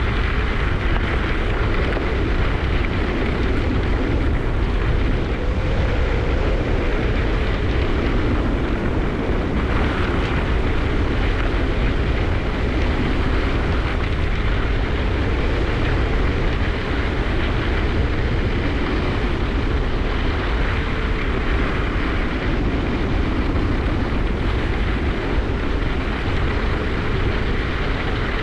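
Steady rushing noise of a ski descent: wind buffeting the microphone and skis running over the snow.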